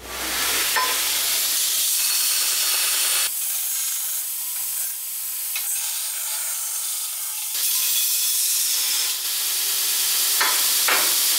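Belt grinder with its abrasive belt grinding the rough-cut end of a thick-wall steel tube: a steady, high, hissing rasp of belt on steel. It eases off about three seconds in and grows louder again from about seven and a half seconds.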